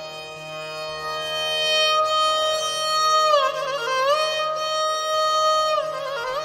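Instrumental music: a single melody line holding long notes, with sliding pitch bends between them about halfway through and again near the end.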